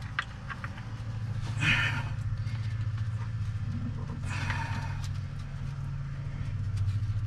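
Hands handling battery cables and a terminal nut on a boat battery: two brief rustling scrapes, about a second and a half and four seconds in, with a few faint clicks. Under them runs a steady low mechanical hum.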